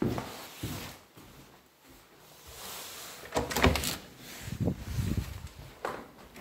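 An internal door being opened, its handle and latch clicking sharply about halfway through, amid soft thumping footsteps on carpet.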